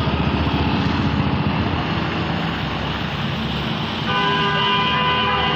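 Road traffic on a wet road: vehicle engines running and tyre hiss. About four seconds in, a vehicle horn sounds in one long, steady honk.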